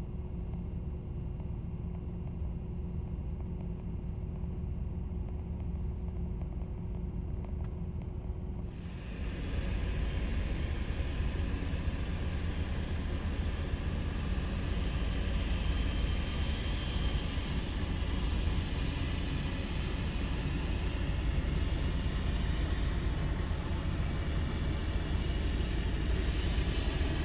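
Low, steady jet rumble of an airliner landing. About nine seconds in it jumps to the louder, hissing noise of a narrow-body Airbus A320-family jet's engines at takeoff thrust as it rolls down the runway and lifts off, holding steady from then on.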